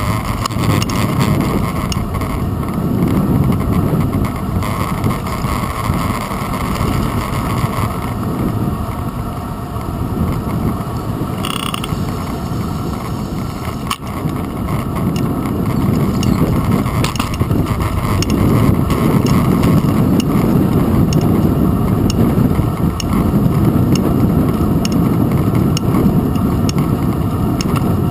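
Bicycle riding along city streets, heard from a camera on the handlebars: a steady low road rumble and rattle with occasional faint clicks from the bike's mechanism, a little louder in the second half.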